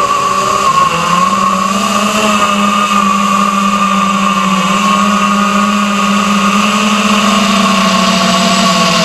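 Eachine Wizard X220 racing quadcopter's brushless motors and propellers whining steadily in flight, heard from the drone's onboard camera, the pitch stepping up slightly about a second in.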